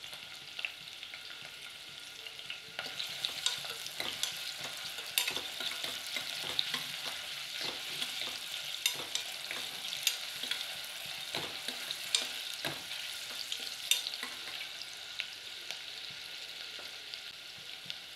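Sliced onions and green chillies sizzling in hot oil in a stainless steel pressure cooker while a spoon stirs them, clinking and scraping against the pot every second or two. The sizzle grows louder about three seconds in.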